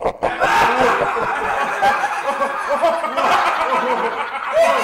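Several voices laughing at once, overlapping one another in a dense, tangled mass, cutting off suddenly at the end.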